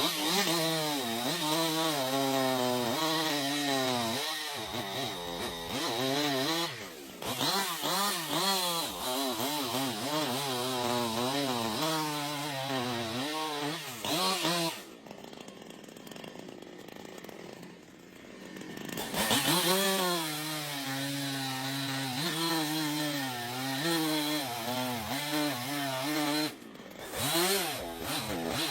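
Two-stroke chainsaw revving up and down repeatedly as it cuts wood. About halfway through it drops to idle for a few seconds, then revs again.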